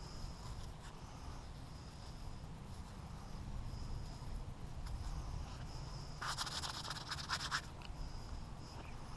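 Fingers rubbing and scratching wet mud off a freshly dug Civil War Williams cleaner bullet, with a louder scratchy burst lasting over a second about six seconds in.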